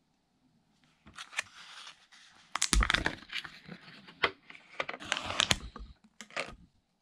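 Peel-off foil lid of a Tulip pork luncheon meat can being worked and torn open by hand. Crinkling and tearing come in bursts with sharp clicks, loudest about three seconds in and again around five seconds.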